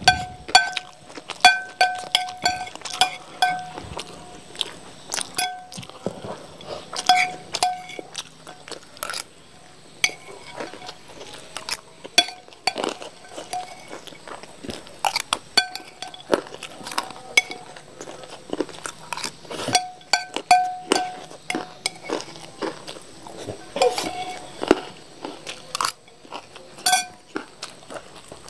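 A metal spoon clinking and scraping on a ceramic plate, many of the strikes leaving the plate ringing briefly, between close-up chewing and crunching of fried rice mixed with crunchy snack pellets.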